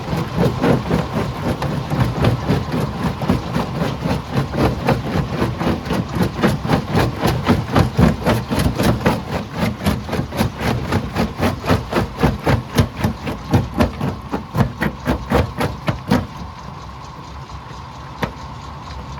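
Rock-crushing machinery hammering on stone in a fast, steady run of impacts, about five a second, over a running engine. The hammering stops about three seconds before the end, leaving the machine's steady hum.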